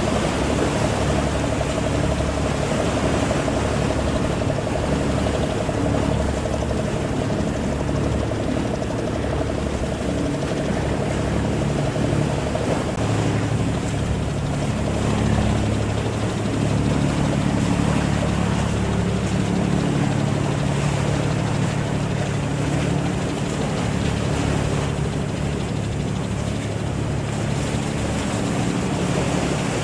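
A boat's engine running steadily, with a higher steady whine over it that fades out about twelve seconds in.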